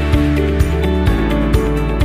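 Background music: soft instrumental track with held notes over a steady beat.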